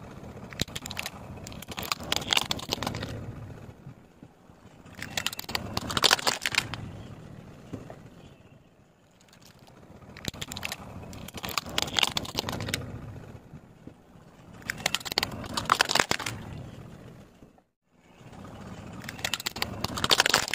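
Car tyre rolling over and crushing small plastic toys, the plastic cracking and crunching in five bursts about every four seconds, each over a low rumble.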